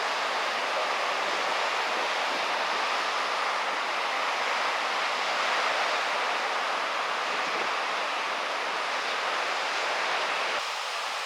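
Steady rushing noise of wind and surf, even throughout and thinning slightly just before the end.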